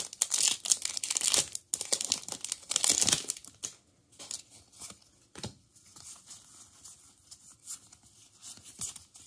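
Foil wrapper of a Pokémon booster pack being torn open and crinkled for about three and a half seconds, then quieter handling of the cards, with one sharp tap about five and a half seconds in.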